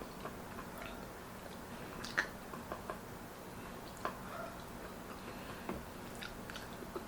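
Close-miked chewing: scattered soft mouth clicks and smacks of someone eating, the louder ones about two and four seconds in.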